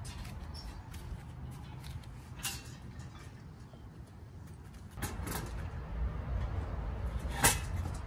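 Black metal plant stand being handled and tilted upright by hand, its frame creaking, with a few sharp metal clacks: one about two and a half seconds in, a couple around five seconds, and the loudest about seven and a half seconds in, over a low rumble.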